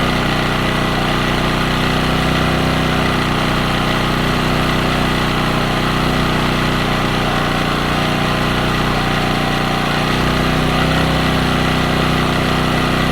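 Champion 1400-watt portable generator's small gasoline engine running steadily with no load, during its first break-in run.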